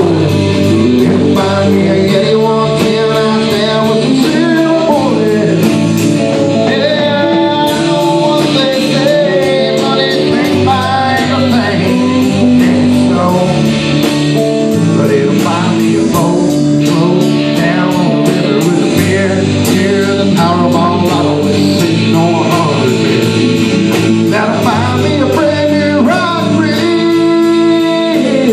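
Live country band playing loudly: electric guitars over bass and a steady drum beat of about two strokes a second, with a voice singing.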